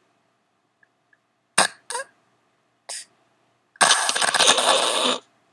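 A sleeping person snoring loudly: three short, sharp snorts, then a long, rasping snore beginning about four seconds in.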